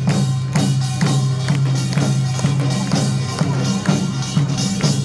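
Loud stage music with a steady beat of about two drum strikes a second over sustained low notes.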